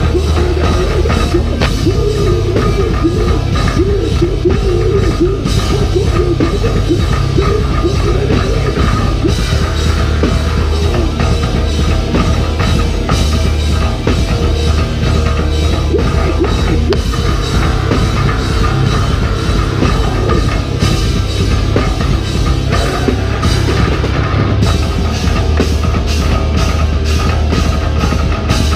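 Heavy metal band playing loudly, heard from on stage right at the electric bass guitar: deep bass, distorted guitars and drum kit. In the last few seconds the drums settle into an even, fast beat.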